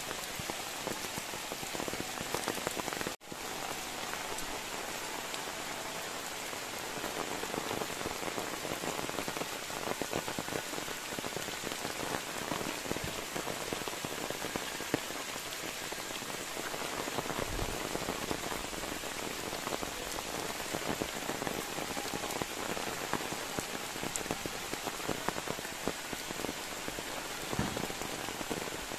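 Steady rain falling, with many small raindrop hits, and a momentary break in the sound about three seconds in.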